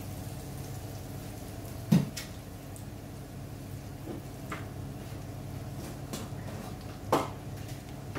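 Breaded hammour fillets frying in a pan of hot oil over a steady low hum, with two sharp knocks of kitchenware, one about two seconds in and a louder-looking one near the end, and a few faint clicks between them.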